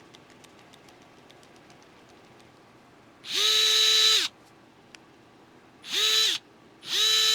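Cordless electric screwdriver motor spinning a bit in three short bursts at a steady pitch: about a second's run three seconds in, a brief one near six seconds, and another starting just before the end. Faint light clicks of handling come before.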